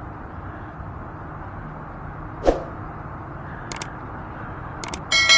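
Steady outdoor background noise, with a single sharp knock about halfway through, a couple of faint clicks, and a ringing metallic clang starting near the end.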